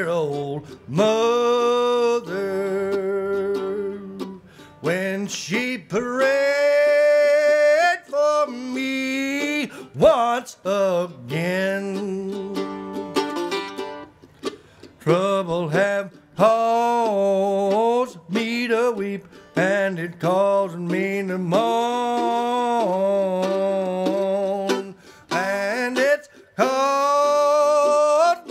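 Solo mandolin in a cross-keyed tuning playing a slow, moody melody, with many notes held for a second or two and short breaks between phrases.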